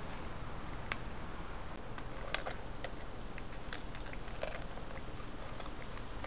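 An orange tabby cat eating from a stainless steel bowl: a handful of irregular crunching clicks of chewing and of food against the bowl, over a steady hiss.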